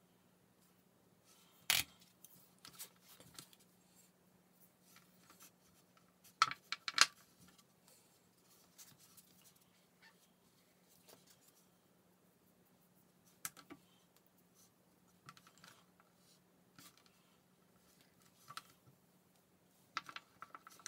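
Plastic sugarcraft tools and a rolling pin being handled on a work board: scattered sharp clicks and taps with soft rustling handling in between, the two loudest taps in quick succession about a third of the way through. A faint steady low hum runs underneath.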